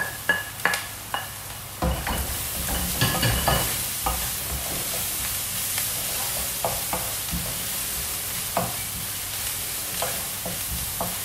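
Chopped onion and garlic sizzling in a nonstick frying pan while a wooden spoon stirs and scrapes them, with irregular knocks of the spoon against the pan. A few sharp taps come in the first second, as garlic is knocked off a plate into the pan.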